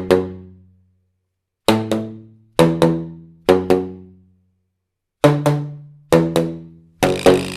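Pitched percussive musical notes struck in quick pairs, each note ringing and fading, with short silences between the pairs. A steady hiss comes in near the end.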